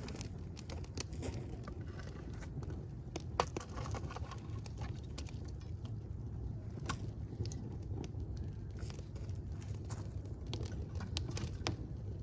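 Wood fire burning with a steady low rumble and irregular sharp crackles and pops, the loudest pop about three and a half seconds in.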